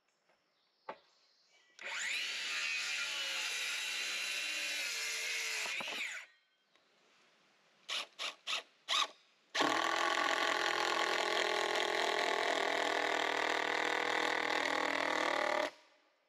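Cordless drill working into a dried poplar board: one run of about four seconds, four quick trigger blips, then a steady run of about six seconds that cuts off sharply. The poplar is hard once dried out.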